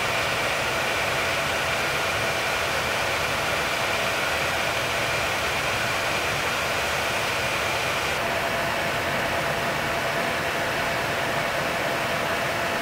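Steady cockpit noise of a B-52 bomber in flight: an even rush of engine and airflow noise with a few steady high tones running through it. The highest hiss thins a little about eight seconds in.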